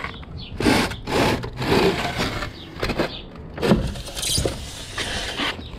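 A series of irregular scrapes and rustles as a folded electric scooter is pulled out of its cardboard shipping box, the deck rubbing against cardboard and foam packing.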